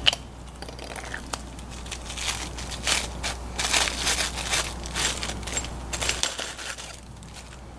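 Small clear plastic bag crinkling and crackling in irregular bursts as it is handled around a PEX expansion head.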